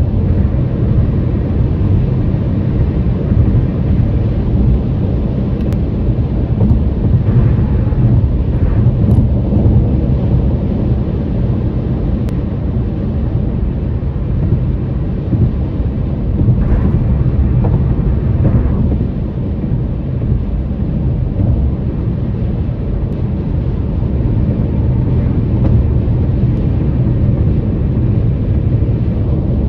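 Steady low rumble of a vehicle's tyres rolling over a road or bridge deck while driving, with two brief changes in tone about a quarter and about three fifths of the way through.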